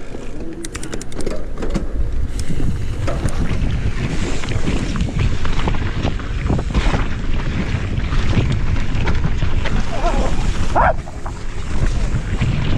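Wind buffeting an action camera's microphone during a fast mountain-bike descent, mixed with the tyres rolling over a dirt trail and knocks and rattles from the bike. There is a short patter of clicks about a second in.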